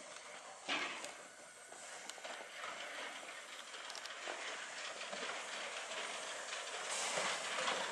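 Small steam tank locomotive running slowly toward the listener with steam hissing, getting steadily louder as it comes closer. A single sharp knock sounds just under a second in.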